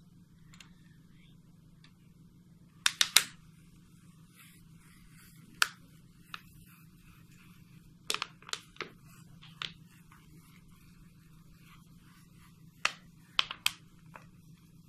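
Scattered sharp clicks and taps, some in quick clusters of two or three, from a small paint-filled bottle and its cap being handled.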